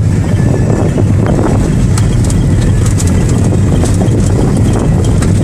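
A loud, steady low engine drone with scattered small clicks over it.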